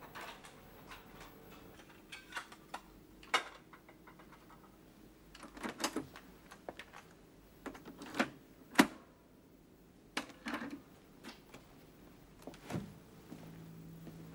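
Cassette deck being handled: a series of plastic clicks and clunks as the tape door opens, a cassette is pushed in and the keys are pressed, with one sharp clack a little after halfway.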